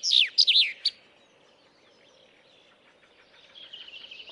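Bird calls: a loud burst of quick, downward-sweeping high chirps for about the first second, then a faint hiss, with fainter rapid chirping starting up again near the end.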